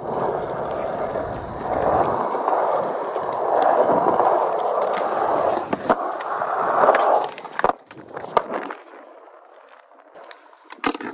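Skateboard wheels rolling fast on a smooth concrete bowl, a steady rumble that swells and eases and drops away about seven seconds in. Quieter rolling follows, with a few sharp clicks.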